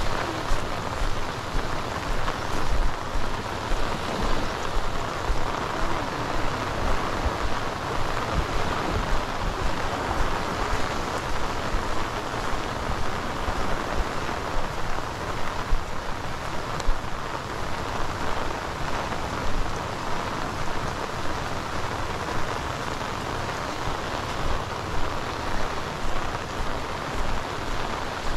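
Heavy rain falling steadily, a dense even hiss with many small irregular spatters.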